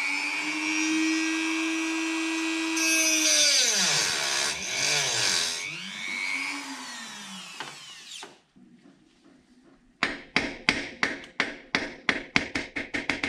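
Dremel rotary tool running at high speed with a steady whine, dropping in pitch as it bogs under load about halfway through and picking up again, as it cuts at the rusted bolts of the thermostat housing; it then spins down about eight seconds in. Near the end comes a fast run of evenly spaced clicks, about four a second.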